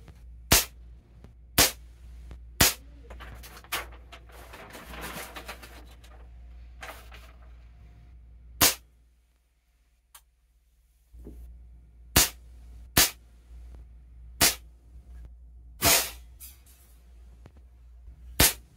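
Crosman 2240 .22 CO2 pellet pistol firing a string of about ten sharp shots, mostly about a second apart, with a short near-silent gap midway.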